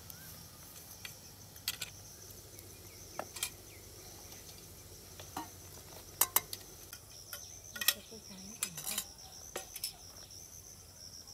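Aluminium momo steamer tiers, lid and steel bowls clinking now and then as they are handled and set down, a dozen or so sharp short clinks, over a steady high insect chorus.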